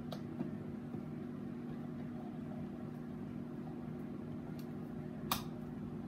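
A steady low mechanical hum, with a few small metal clicks of a screwdriver tip against a switch-plate screw. The sharpest click comes about five seconds in.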